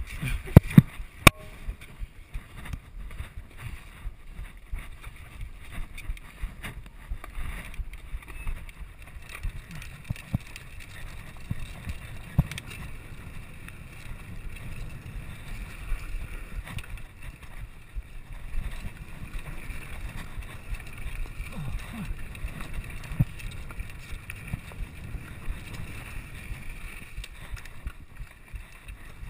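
Mountain bike riding fast down a dirt trail: a steady low rumble of tyres over rough ground with frequent rattles and knocks from the bike, and wind on the microphone. A few sharp knocks come in the first couple of seconds.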